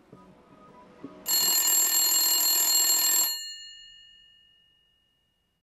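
A phone ringing loudly for about two seconds, starting about a second in, then its ringing tones die away over the next two seconds.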